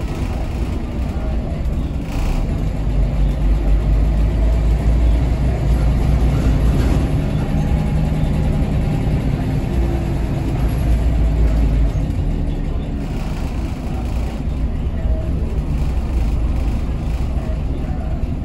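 Scania DSC9 diesel engine of a Scania L94UB city bus running, heard from inside the cabin near the rear, with a deep rumble that eases about twelve seconds in.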